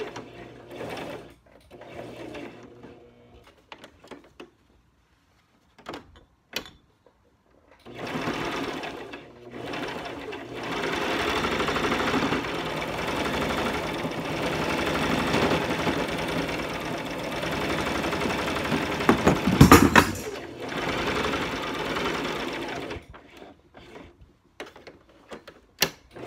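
Brother domestic sewing machine stitching: a few short runs with pauses, then about fifteen seconds of steady stitching, then short runs again near the end. A sharp knock, the loudest sound, comes near the end of the long run.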